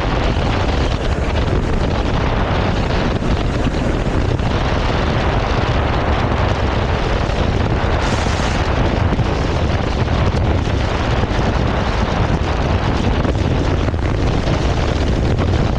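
Loud, steady wind rush on a helmet-mounted action camera, with a Triumph Tiger 1200's engine running underneath as the motorcycle is ridden.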